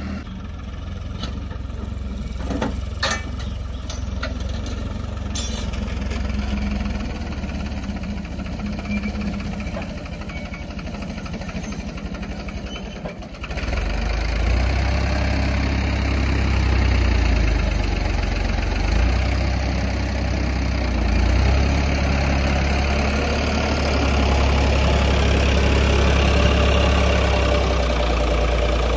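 Ford 3600 Turbo tractor's three-cylinder diesel engine running steadily as it pulls a trolley loaded with soil, with a few sharp clicks in the first few seconds. About halfway through it becomes much louder and closer, with a strong deep low end.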